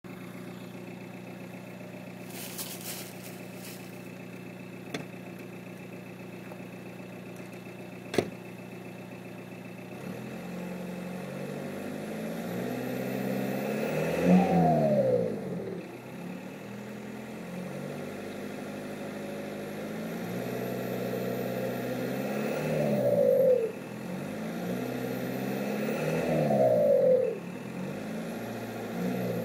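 Seat Ibiza Cupra TDI turbodiesel with a Milltek exhaust idling steadily, with a few clicks, then climbing in revs three times, each time dropping back quickly. A faint high turbo whistle rises with the revs.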